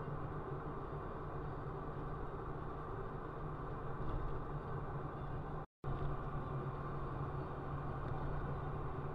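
Steady low hum of a car's engine, heard from inside the cabin, with a very brief cut in the sound about halfway through.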